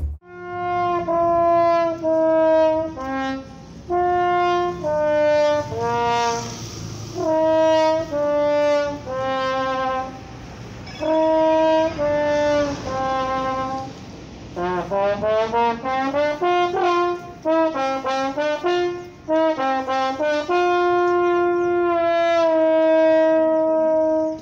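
Solo trombone playing a melody: held notes in short phrases with brief pauses between them, quicker notes in the middle, and a long held note near the end.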